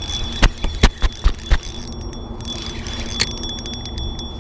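A few sharp knocks in the first second and a half, then from about three seconds in a spinning reel clicking rapidly and evenly as a hooked fish is fought on rod and reel.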